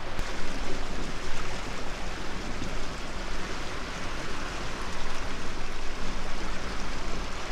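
Water rushing and splashing past the hull of a small houseboat under way, with a low, steady motor hum underneath.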